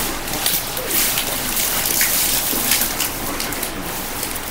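Baseball trading cards being handled and slid against one another, a steady papery rustle with a few sharper flicks.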